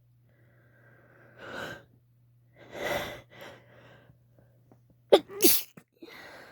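A woman's induced wet sneeze: two breathy, gasping in-breaths build up, then a sharp double sneeze comes about five seconds in, followed by a breath out.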